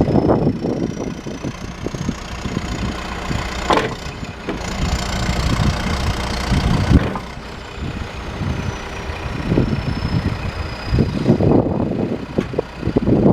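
John Deere 310SJ backhoe loader's diesel engine running, with a thin high whine that slowly rises in pitch over the first half and falls again later.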